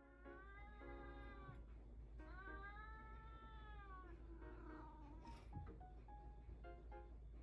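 A domestic cat meowing: two long, drawn-out meows, each rising and then falling in pitch. Soft background music with short plucked notes comes in during the second half.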